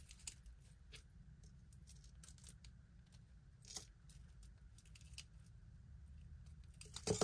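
Small pieces of costume jewelry faintly clicking and clinking as they are handled and sorted, with a sharper clink near the end.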